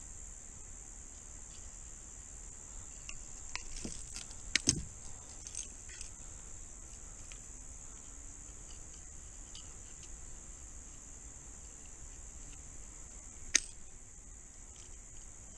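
Fishing pliers and a lure's metal treble hooks clicking and clinking as hooks are worked out of a fish's mouth. The clicks are scattered between about three and six seconds in, the loudest a pair around four and a half seconds, with one more sharp click near the end, all over a steady high-pitched chirring of insects.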